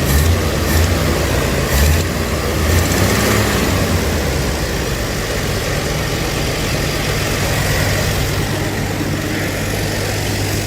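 1982 Ford Granada's straight-six engine idling steadily at low idle, after the choke was worked by hand to bring the idle down because the choke doesn't work. A few uneven low bumps come in the first couple of seconds before the idle note settles.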